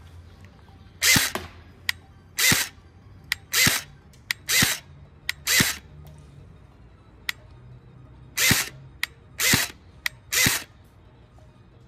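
Umarex HK 416 low-power electric airsoft gun firing single shots, eight in all, each a brief gearbox-and-motor whir, about a second apart with a pause in the middle. Thin sharp clicks fall between the shots.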